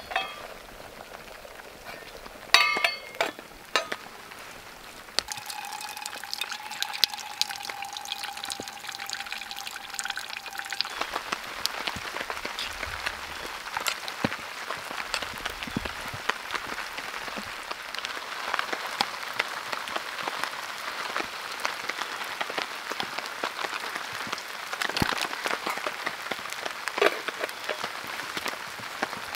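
Heavy rain pattering on a tarp, a dense spatter of drops that thickens about eleven seconds in. Before that come a few sharp knocks, and a steady tone holds for about six seconds.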